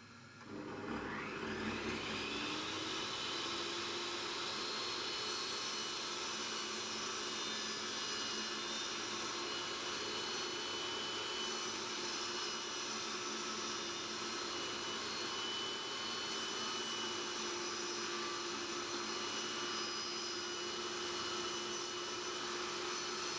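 Vacuum cleaner switched on: its motor spins up with a rising whine over about two seconds, then runs steadily.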